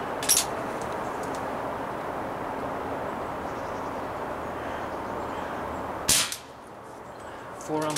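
Two sharp shots from an Umarex Smith & Wesson M29 CO2-powered BB revolver, about six seconds apart, the second one louder. Steady background noise runs under them.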